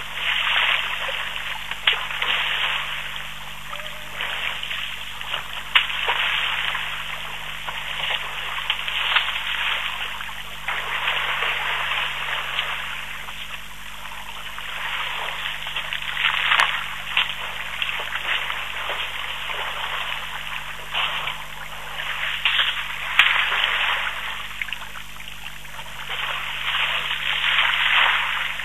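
African elephants wading and drinking in a waterhole: uneven splashing and trickling of water that swells and fades, with occasional sharper splashes. A faint steady hum lies underneath.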